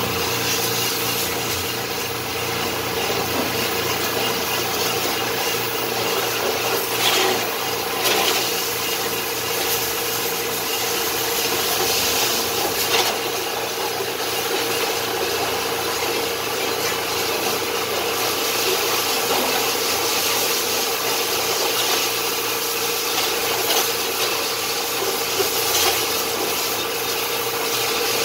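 High-pressure washer jet hissing and spattering against a car's underbody and wheel arches, with a steady hum underneath. It turns briefly louder a few times.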